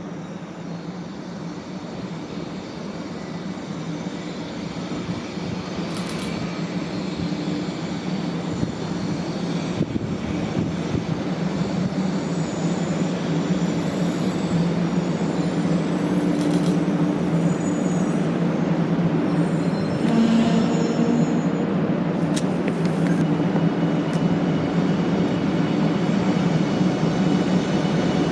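JR West 500 Series Shinkansen (500 TYPE EVA) rolling slowly into the station. Its running noise grows steadily louder as it approaches, over a steady low hum, with a few faint clicks.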